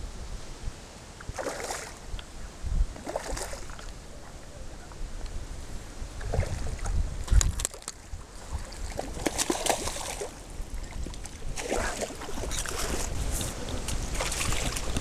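Strong wind buffeting the microphone in repeated gusts, over a steady low rumble, with water lapping.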